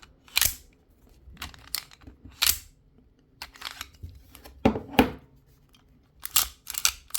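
Sig Sauer 1911 CO2 air pistol's metal action being worked by hand: a string of sharp, irregular clicks and clacks, with the loudest clacks near the start, in the middle and about five seconds in.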